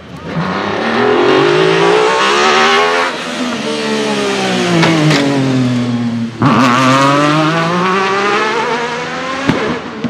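Alfa Romeo 155 V6 Ti race car's 2.5-litre V6 revving hard and climbing in pitch, with a gear change about three seconds in. The revs fall away as it passes and slows, jump sharply about six seconds in, and fall again. A couple of sharp pops come from the exhaust near the end.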